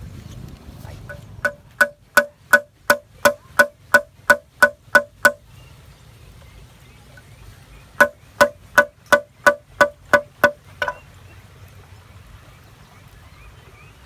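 Machete chopping bamboo on a dry log: two runs of sharp, ringing knocks at about three a second, the first about a dozen strokes long and the second, a couple of seconds later, about nine.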